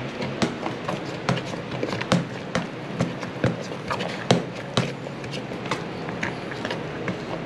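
Metal spoon beating thick yautía dough in a stainless steel pot, knocking against the pot's side about twice a second.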